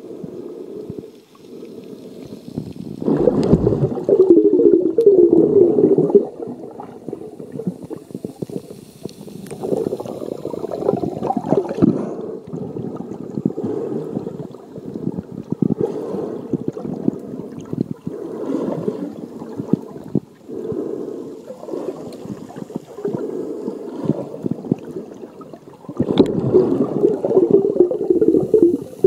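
Muffled underwater sloshing and gurgling of seawater, picked up by an iPhone sealed in a waterproof case. It swells louder about three seconds in and again near the end.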